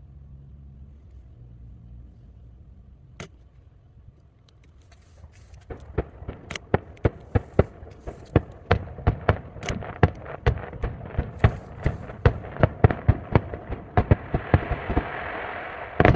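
Aerial firework shells bursting, played back at triple speed: a single bang about three seconds in, then from about six seconds a rapid run of sharp bangs, two or three a second.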